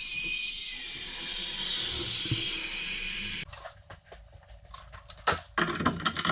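Water hissing through the pipework as the water supply is turned back on. The steady hiss cuts off abruptly about three and a half seconds in, followed by a few light knocks and clicks.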